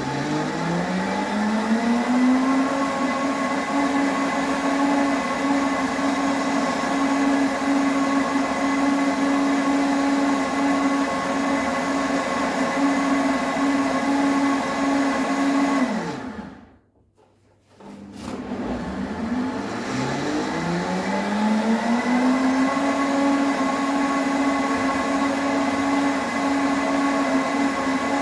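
Electric blender blending a fruit smoothie. The motor spins up with a rising whine over the first couple of seconds and runs steadily. About 16 s in it winds down and stops, then after a second or two starts again and spins back up to full speed.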